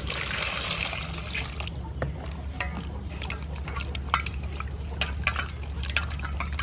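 Water poured from a plastic bowl into a stainless steel bowl of tomatoes and green onions, the pour lasting about a second and a half, then hands swishing and splashing the vegetables in the water to wash them.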